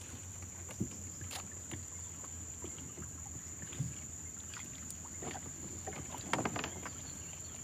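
Light, scattered knocks and small splashes as a fishing longline is handled over the bow of an aluminium boat, against quiet river ambience with a steady high-pitched whine. The biggest cluster of knocks comes about six seconds in.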